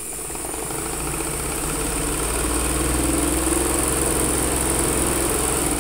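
Small electric sewing machine running steadily as it stitches a thick ruffled frill, getting slightly louder over the first couple of seconds and stopping near the end.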